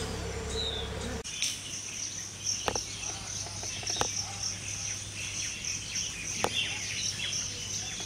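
Small birds chirping over a low hum. About a second in, the sound changes abruptly to a steady, high insect drone with birds twittering beneath it, broken by three sharp clicks.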